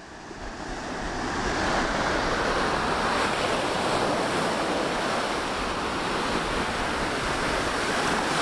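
Small ocean waves breaking and washing up a sandy beach in a steady rush of surf, fading in over the first couple of seconds.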